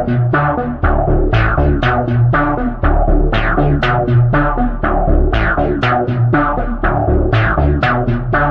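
Loud electronic music: a fast, steady drum-machine beat over synthesizer bass and chords.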